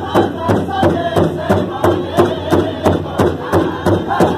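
Powwow drum group singing in unison over a steady, even beat on a shared big drum, about three strokes a second.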